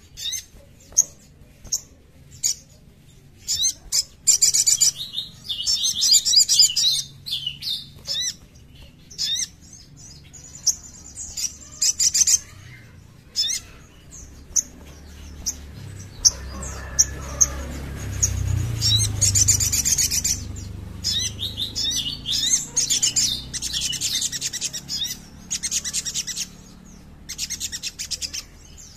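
Sogon (sogok ontong) sunbird singing: bursts of fast, high, rapidly repeated chattering notes and sharp single chips, each phrase a second or two long with short pauses between. A low rumble swells underneath about halfway through.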